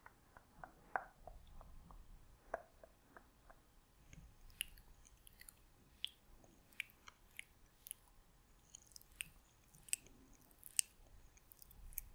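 ASMR mouth sounds close to the microphone: soft, irregular wet clicks and smacks of lips and tongue, a few a second. They are low and soft at first and turn sharper and higher from about four seconds in.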